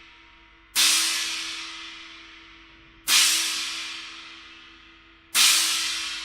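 A Kingdo cymbal struck three times, a little over two seconds apart, each hit ringing out and fading before the next.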